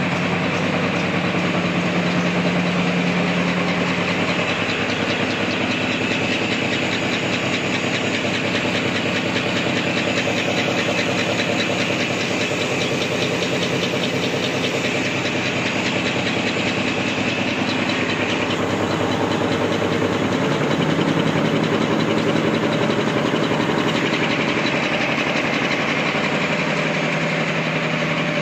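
Two-color printing paper napkin making machine running steadily: a rapid, even rattle of its rollers and folding and cutting mechanism over a steady hum, its tone shifting a few times.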